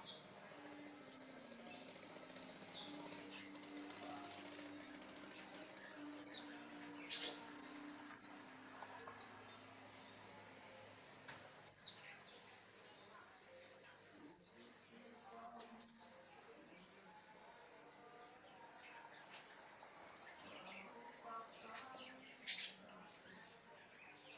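Lovebird giving short, shrill chirps that sweep downward, some single and some in quick runs of two or three, the loudest clusters about halfway through and near the end. A steady high-pitched hum runs behind them.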